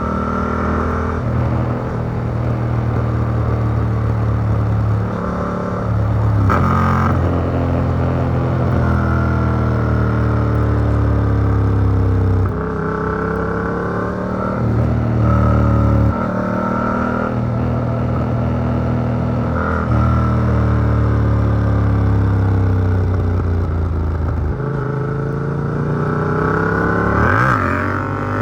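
Yamaha MT-07's CP2 parallel-twin through an Arrow Works exhaust with a dB killer, revving up and down again and again while riding fast, recorded from a phone in the rider's backpack. Steady low tones that change step-wise every few seconds run underneath.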